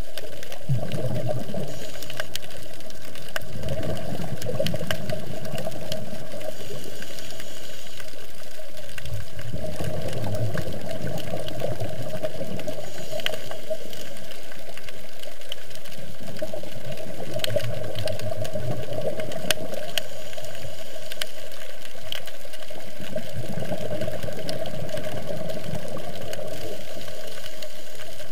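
Underwater sound on a coral reef picked up by the camera: a constant crackle of sharp clicks, with a low rumbling noise that swells and fades every few seconds.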